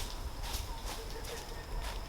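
Footsteps on a hiking trail, about two steps a second, over a faint steady high-pitched insect buzz and a low rumble.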